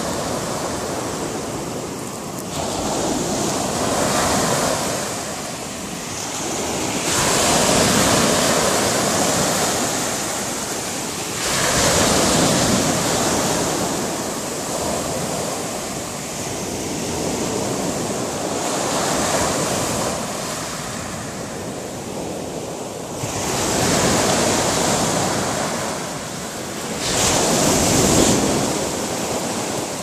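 Small sea waves breaking and washing up the shore, the surf swelling and fading with a new wave every few seconds.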